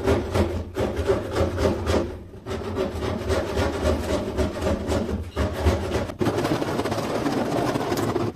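Rapid scraping and rubbing strokes on PVC ceiling panelling as it is worked by hand at the edge, with a steady low rumble underneath. The strokes pause briefly about two seconds in and again about six seconds in.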